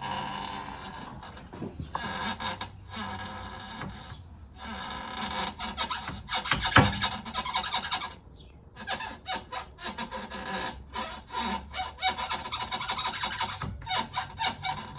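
Toyota Corolla lower control arm bushing creaking and squeaking in repeated strokes with brief pauses as the arm is pushed down by hand, its ball joint disconnected. It is a dry rubber bushing rubbing, the source of the car's squeak over bumps, and the mechanic most suspects the rear bushing.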